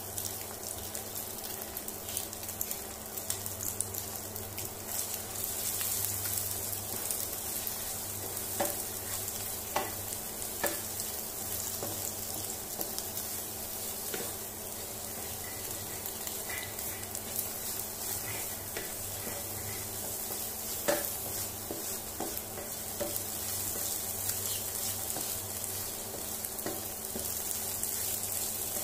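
Eggs sizzling in oil in a nonstick frying pan as a wooden spatula scrambles them, with scattered clicks and scrapes of the spatula against the pan. A steady low hum runs underneath.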